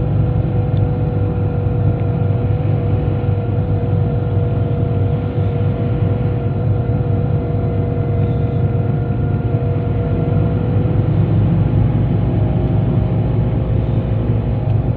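Cabin noise inside a moving Scania K94IB coach: the rear-mounted diesel engine and tyres on the road make a steady low drone, with a steady whine running through it.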